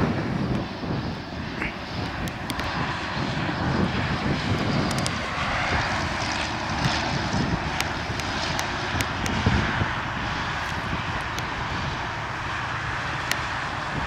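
Boeing Stearman biplane's radial engine running steadily as the aircraft flies overhead, a continuous drone with a few faint clicks.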